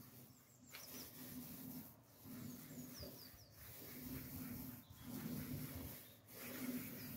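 Foam paint roller rolling epoxy 2K primer onto a car bonnet, a soft rolling sound that swells and fades with each stroke, roughly once a second. A few faint bird chirps sound in the background.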